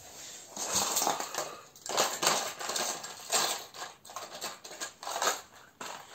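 Handling noise: a plastic bag crinkling and small hard objects clattering in irregular bursts as tackle is rummaged through and unpacked.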